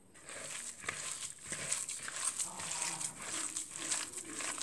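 Hand kneading a raw minced-meat kofta mixture in a plastic bowl: a continuous run of soft, irregular squishing and rubbing.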